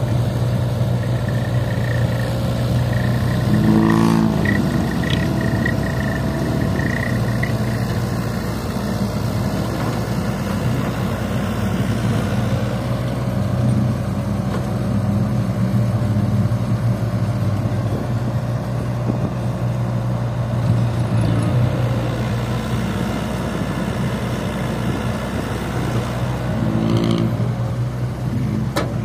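Heavy diesel engine of earthmoving machinery running steadily under load. Two brief rising sounds come through, a few seconds in and again near the end.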